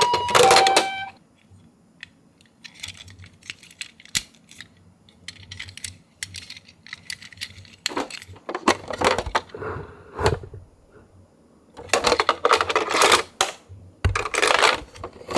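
Small die-cast toy cars clicking and clattering against each other and a box as they are handled, with several louder rattling runs in the second half. Just before, a two-tone ambulance siren cuts off about a second in.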